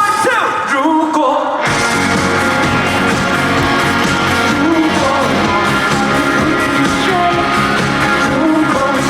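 Live pop-rock band music played loudly through a concert sound system. Near the start the bass and drums drop out for about a second and a half, leaving gliding high notes, then the full band comes back in.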